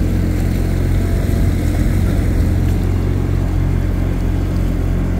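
A boat's engine running steadily at low speed, a constant low drone.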